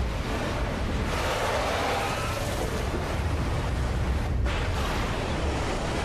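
A continuous heavy rumble and rushing noise of eruption and collapse effects, swelling brighter about a second in and dropping off sharply for a moment about four and a half seconds in.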